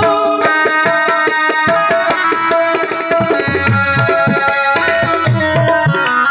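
Tabla played in a fast, dense rhythm of strokes in a musical interlude, with deep bass strokes that bend in pitch.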